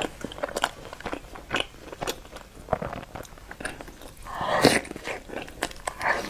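Close-miked eating sounds: a person biting and chewing food, a quick run of short clicks and smacks from the mouth, with one longer, louder mouth sound about four and a half seconds in.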